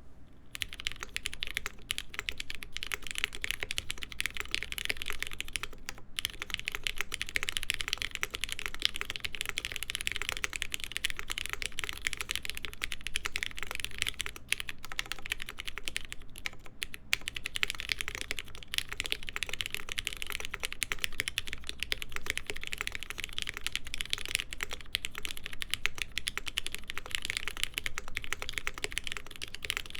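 Continuous typing on a stack-mounted Mode SixtyFive mechanical keyboard with Cherry MX Black linear switches lubed with Krytox 205g0, a POM half plate and JTK Hana keycaps; a dense, steady clatter of keystrokes starting about half a second in.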